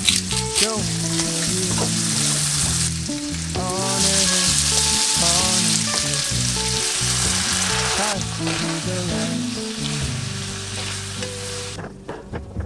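Scallops and pasta frying in butter and oil in a frying pan, sizzling steadily. The sizzle grows louder about three seconds in and cuts off suddenly near the end.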